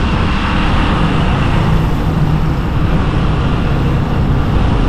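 Steady engine and road noise from a moving vehicle: a loud low rumble with a faint drone running under it.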